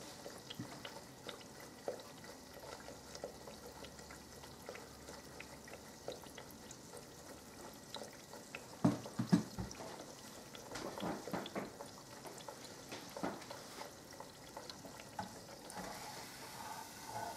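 Bread frying in an electric deep fryer: the oil sizzles and bubbles gently with many small crackles and pops. A cluster of louder pops comes about nine seconds in.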